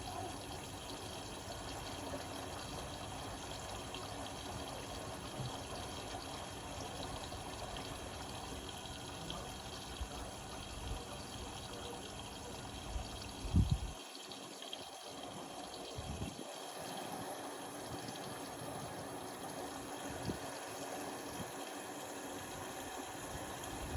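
Indesit Innex BWE 91496X washing machine running, with water pouring and splashing in the drum over a steady low rumble. A couple of louder knocks come about 13 seconds in, after which the low rumble thins out.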